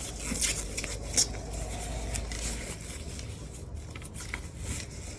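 Packaging being handled and pulled apart while an appliance is unboxed: rustling and scraping with scattered light clicks, one sharp click about a second in.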